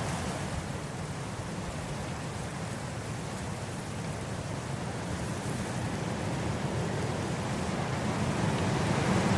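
Wind blowing across grass: a steady rushing noise with a low rumble, easing a little in the first seconds and then building into a stronger gust toward the end.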